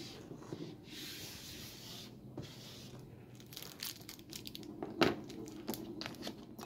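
Hands handling a worn leather strap and its small metal hardware on a cutting mat: soft rubbing of leather, then a scatter of light metal clicks, the sharpest about five seconds in.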